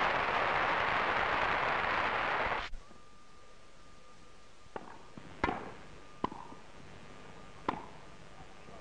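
Grass-court tennis crowd applauding, cut off abruptly about two and a half seconds in. A faint steady tone follows, and four sharp racket-on-ball strikes of a serve and rally come about a second apart.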